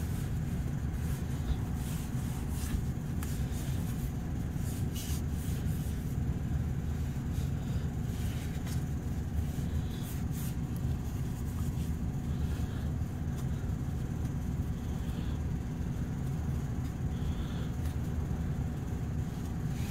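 A steady low rumble throughout, with faint scrubbing of a shop rag being wiped over the car's underside.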